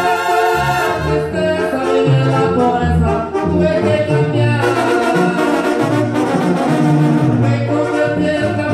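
Mexican banda brass band playing, with trumpets, trombones, saxophones and sousaphone over drums.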